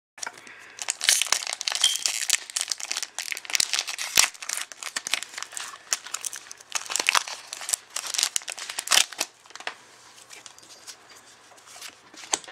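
Foil Pokémon card booster pack wrapper torn open and crinkled by hand: a dense run of sharp crackles that thins out to a few quieter rustles after about nine seconds.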